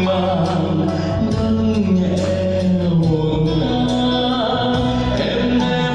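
A male singer on a handheld microphone with a backing track, both amplified through loudspeakers, in a continuous song with long held notes.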